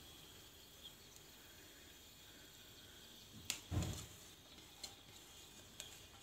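Chopped onion pushed off a plate into a clay cooking pot: a few faint taps and one soft thump about three and a half seconds in, over a quiet background hiss.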